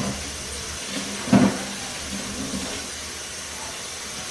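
Steady hissing noise, with one short, louder sound about one and a half seconds in.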